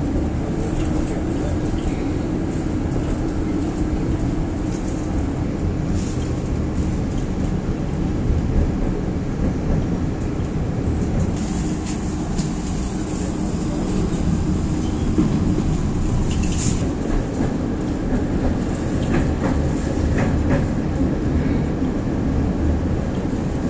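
Tatra T3 tram running along the rails, heard from inside the car: a steady rumble of wheels and running gear with a constant hum, broken by a few sharp clicks.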